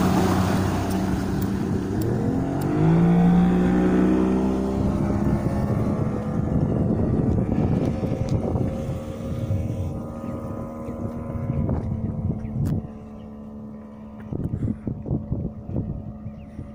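Yamaha 80 outboard motor on a Plancraft Sabre speedboat accelerating away, its pitch climbing about three seconds in as it speeds up. It then runs at steady high revs, growing fainter as the boat moves off across the water.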